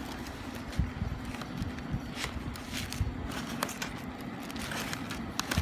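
Brown paper takeaway bag and cardboard fries boxes rustling and crinkling as a hand rummages among them, in scattered irregular crackles and taps, over a steady low hum.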